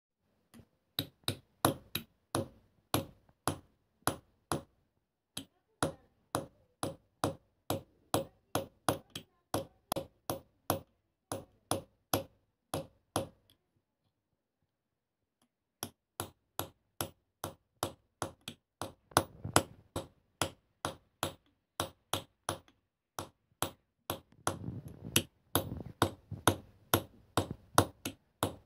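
A small hammer striking a steel chisel held against a copper vessel, engraving the metal by hand. It makes short, sharp metallic taps at about two to three a second, with a pause of about two seconds just past the middle.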